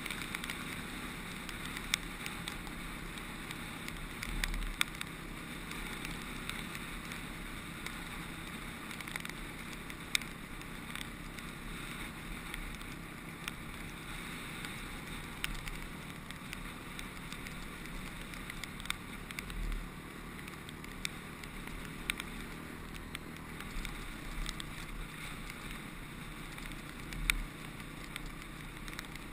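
Honda CRF250X trail bike's four-stroke single-cylinder engine running steadily under way on a gravel track, with wind on the helmet-camera microphone. Scattered sharp ticks and a few brief low thumps from bumps along the way.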